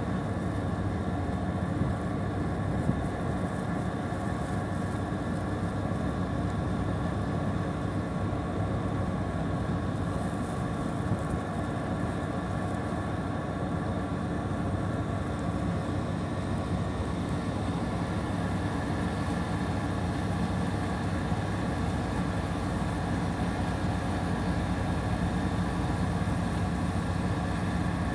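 Steady low hum of idling machinery, several steady tones over a rumble, unbroken throughout.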